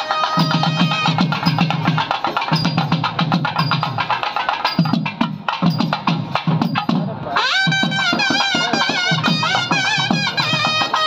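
Nadaswaram and thavil playing South Indian temple procession music: a wavering, sliding reed melody over rapid drum strokes. The melody drops away for a couple of seconds in the middle while the drumming goes on, then returns strongly.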